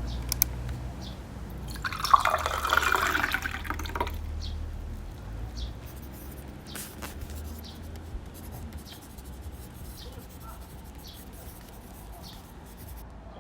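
Water dripping in scattered single drops, with a brief splashing pour about two seconds in, over a low rumble.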